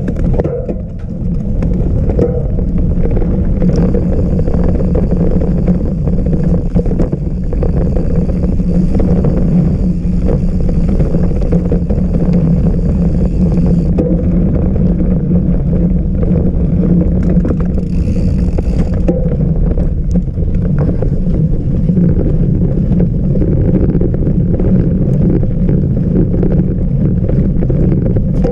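Wind buffeting the microphone of a GoPro on a moving mountain bike: a loud, steady low rumble with scattered knocks, and a higher hiss for about ten seconds near the start and again briefly later.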